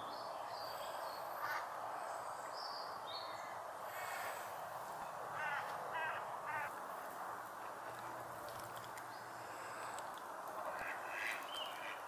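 Steady background hiss with scattered bird calls: a few high chirps near the start, three short harsh calls about halfway through, and more calls near the end.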